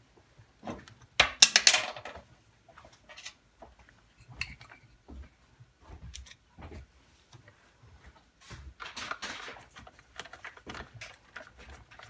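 Scattered small clicks, knocks and scrapes of a boiler's circulating pump head being handled as its plastic wiring cover is fitted and its screw driven back in with a screwdriver; the loudest clatter comes about a second and a half in.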